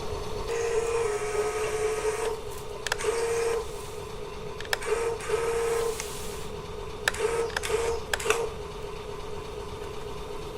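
Small electric motors of a Huina 1554 RC toy bulldozer whirring in short bursts that start and stop over and over, with a few sharp plastic clicks.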